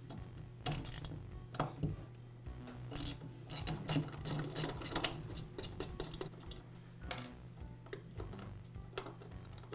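Light metallic clicks and scrapes, scattered about once a second, as a nut driver turns the nut off a chainsaw muffler's sheet-metal spark arrestor cover and the cover is worked loose.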